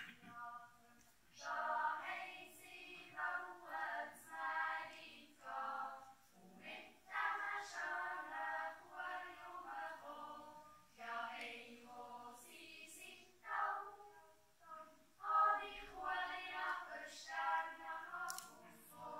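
Children's yodel choir with women's voices singing a cappella, in sung phrases with short pauses for breath between them.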